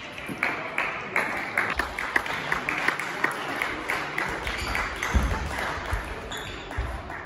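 Table tennis rally: the ball clicking off the rackets and the table in quick alternation, about three hits a second, followed by a few low thuds of players' feet on the hall floor.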